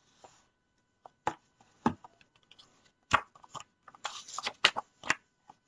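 Hardcover picture book being handled and opened: a few separate sharp taps and knocks, then about four seconds in a quick cluster of clicks and rustling as the stiff cover and pages are turned.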